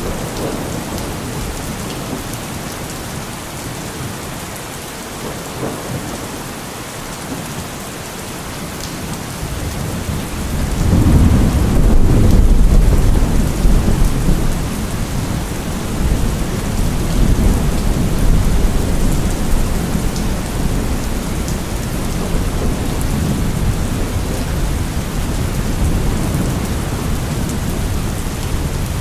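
Steady rain falling, with a roll of thunder that swells about ten seconds in, peaks loudly for a few seconds and then rumbles on under the rain.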